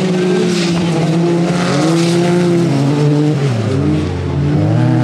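Autocross racing buggy engines running hard at high revs, their pitch rising and falling with throttle and gear changes; the note dips a little after three and a half seconds, then climbs again about a second later.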